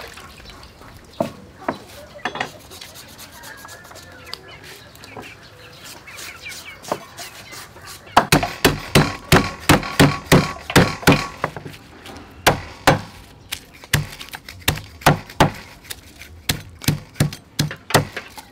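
A cleaver chopping lemongrass on a thick wooden chopping block. After a quieter stretch with a few knocks, it becomes a fast, even run of chops about eight seconds in, about three a second. Slower, irregular chops follow.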